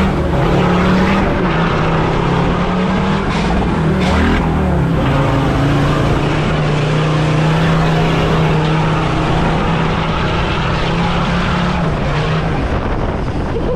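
Off-road vehicle's engine running hard under load. Its revs rise in the first second, dip about four seconds in, then hold steady before easing off near the end.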